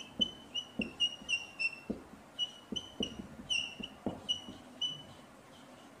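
Whiteboard marker squeaking while writing: a string of short, high squeaks, one per stroke, with soft taps of the marker tip. They thin out about five seconds in.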